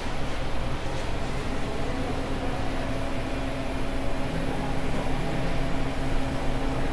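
Steady hum and rushing air of a shop's cooling equipment, with a constant low drone.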